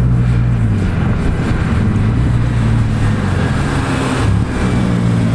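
Car engine running at low revs, its pitch stepping up and down a little, heard from inside a car.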